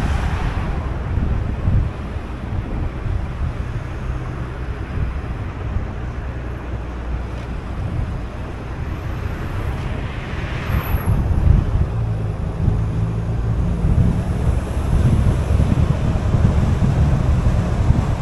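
Car driving on a city street: a steady low rumble of engine and tyre noise, with wind buffeting the microphone. A louder swell of noise rises and fades about eleven seconds in.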